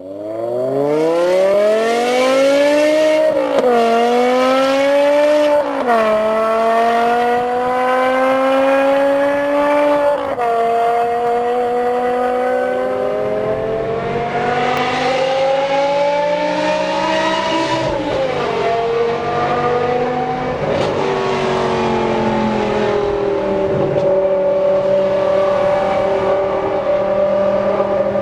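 BMW M5 E60's V10 through a Kreissieg valved exhaust, pulling hard from a standstill: revs climb steeply and drop back at three quick upshifts in the first ten seconds. From about halfway through, the revs rise again, fall back, then settle into steadier running.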